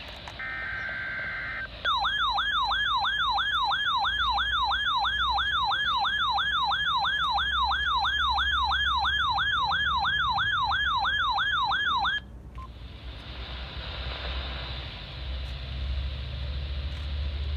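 An EAS data burst, a harsh digital screech, then a warbling alert tone that sweeps up and down about three times a second for some ten seconds. The tone cuts off suddenly, leaving radio hiss. It is the alert of a NOAA Weather Radio required weekly test.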